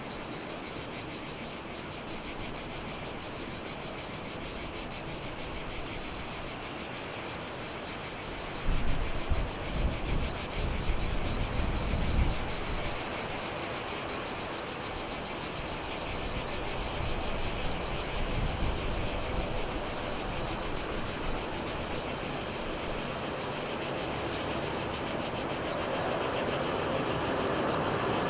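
Steady, shrill chorus of insects, finely pulsing and high-pitched, with a low rumble rising under it around nine to thirteen seconds in.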